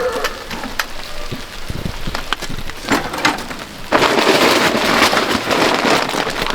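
Rain falling, with scattered knocks and clicks; about four seconds in, a louder, steady hiss of rain sets in suddenly.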